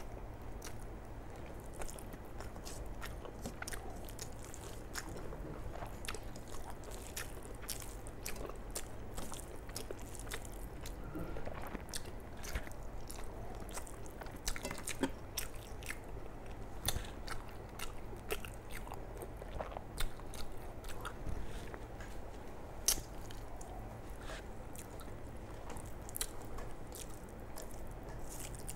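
Close-up chewing of rice and curry eaten by hand: a steady stream of small wet mouth clicks and smacks as a mouthful is chewed.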